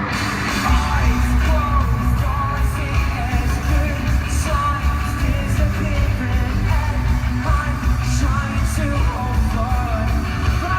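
Live pop-rock band playing loudly with drums, bass and guitars, a singer's voice over them and fans yelling, heard from within the concert crowd.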